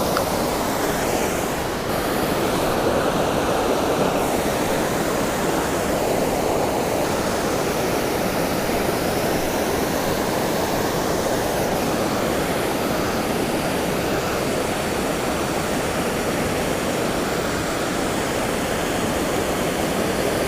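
Waterfall pouring into a creek pool: a steady, unbroken rush of falling water.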